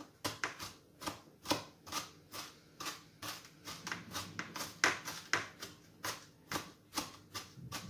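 Chef's knife chopping onion finely on a plastic cutting board: a steady, slightly uneven run of sharp knocks, about two to three a second.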